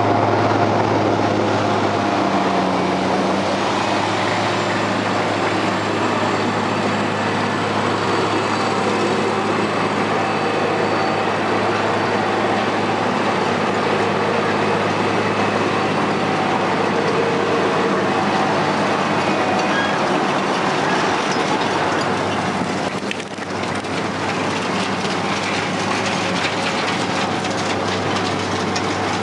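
Dynapac cold milling machine working: a steady, loud diesel engine hum under the grinding rumble of the cutting drum eating asphalt, with millings pouring off the conveyor into a side-dump trailer.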